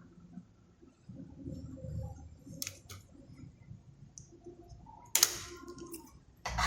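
Light clicks and taps of small objects being handled on a workbench, with a sharper click a little over two and a half seconds in and the loudest click about five seconds in.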